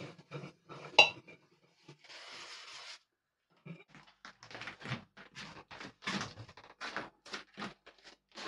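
Kitchenware clattering: pots and utensils knocked and clinked in a run of short knocks, with one sharp ringing clink about a second in and a brief rush of noise around two seconds in.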